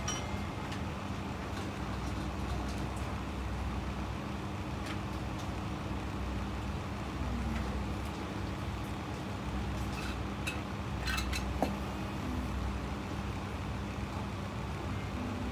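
Steady low background hum and rumble, with a few faint clicks about two-thirds of the way through.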